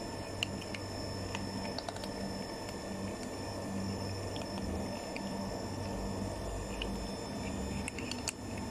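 Cats eating dry kibble: scattered small crunches and clicks over a steady low hum.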